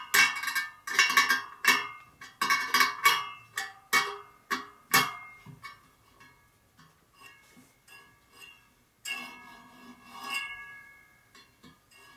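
Steel spokes of a laced Harley-Davidson Sportster wire wheel struck one after another, each giving a sharp metallic ping that rings on. The spokes are being checked for tension by their ring, to find the tight ones. The pings come quickly for the first half and grow fainter and sparser after that.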